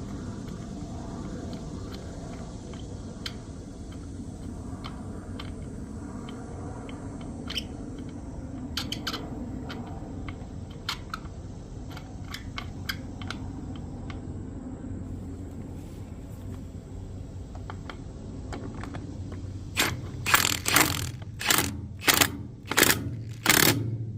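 Light metal clicks and taps of nuts and bolts being fitted on a Dayton spider wheel hub. Near the end come about seven short, loud bursts in quick succession from an impact wrench running the nuts down.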